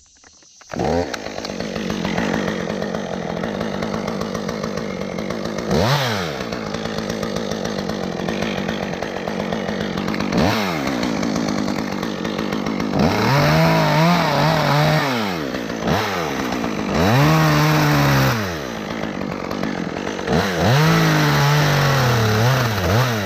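Chainsaw running. It comes in about a second in and is worked up and down in revs: its pitch dips and climbs back several times. From about halfway there are longer stretches at high revs that sag and recover.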